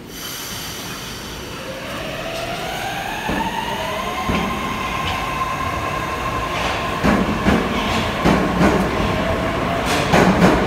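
An 81-722.1/723.1/724.1 'Yubileyny' metro train pulling away from a station. Its electric traction drive whines, rising in pitch over the first four seconds and then holding steady. From about seven seconds in, the wheels clack over rail joints and the sound keeps growing louder as the train gathers speed.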